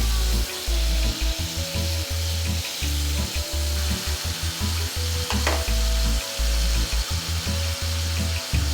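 Napa cabbage and pork sizzling as they stir-fry in a pan, with a single sharp click about five and a half seconds in.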